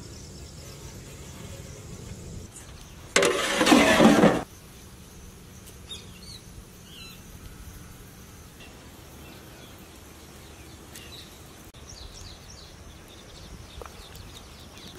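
Outdoor rural ambience with a steady low background and birds chirping now and then. A loud rush of noise comes about three seconds in and lasts just over a second.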